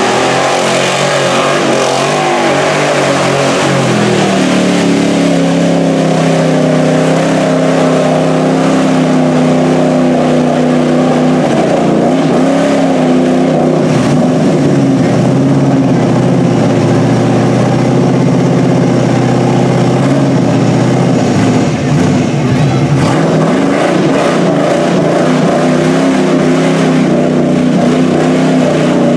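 Chevy mud truck's engine at full throttle, revving up over the first few seconds and then held at high revs as the truck plows through deep mud and water. The revs dip briefly about three-quarters of the way through, then pick up again.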